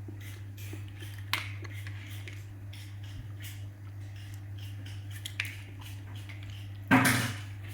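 Scattered light clicks and taps from small toys and plastic being handled, with a sharper click about a second and a half in and a louder rustling burst near the end, over a steady low hum.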